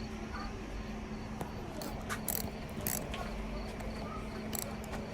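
A few short metallic clicks and taps of an H5 hex key working on the wheel's mounting nuts, over a steady low hum and faint cricket chirping.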